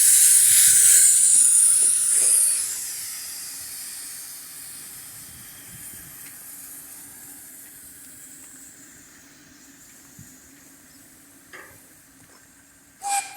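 Steam locomotive letting off a loud hiss of steam that holds for a couple of seconds, then slowly dies away. A faint steady hum runs beneath it, and there is a brief sharp sound at the very end.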